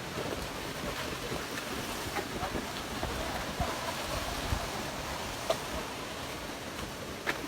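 Steady rush of falling water from a waterfall cascade, with a few short sharp knocks scattered through it.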